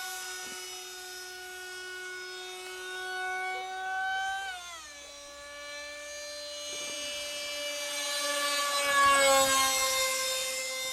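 Radio-controlled model MiG jet flying overhead, its motor giving a steady high whine. The pitch steps down about halfway through, then the whine swells louder and glides lower as the model passes close near the end.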